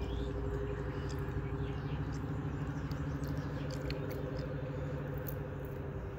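A steady, even motor or engine hum over a low rushing noise, with faint short high ticks and chirps scattered through it.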